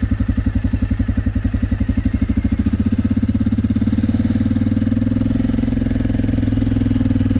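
Four-wheeler (ATV) engine running while driving. Its low pulsing putter picks up into a smoother, steadier drone about two and a half seconds in.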